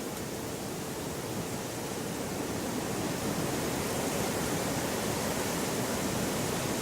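Outdoor hillside ambience: a steady rushing noise with no distinct events, growing a little louder about three seconds in.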